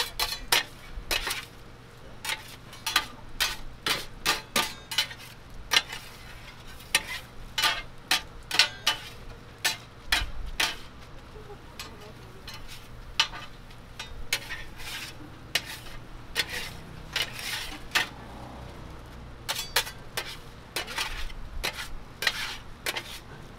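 Metal spatulas clacking and scraping against a flat steel griddle as stir-fried noodles are tossed and chopped, over a steady sizzle of frying. The clacks come irregularly and thin out in the middle.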